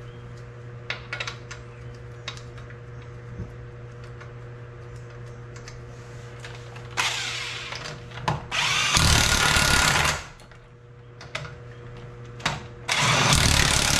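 Cordless impact wrench running wheel lug bolts in, in three bursts: a short one about seven seconds in, then two longer, louder ones about nine and thirteen seconds in. Before it, a few light metal clicks as the bolts are handled.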